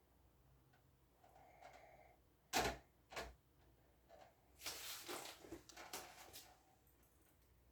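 Hard plastic clicks and clatter from parts of an electric fan being handled and fitted together by hand. Two sharp clicks come first, then a couple of seconds of quick rattling knocks, and another click near the end.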